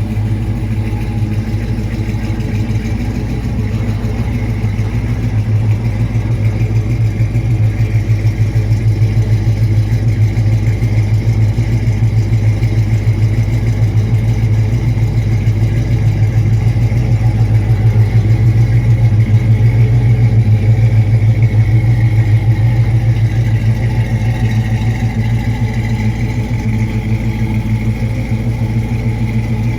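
The 350 small-block V8 of a 1966 Chevrolet Caprice, fitted with headers and dual exhaust, running with a steady low exhaust note. It grows gradually louder over the first two-thirds and eases off a little near the end.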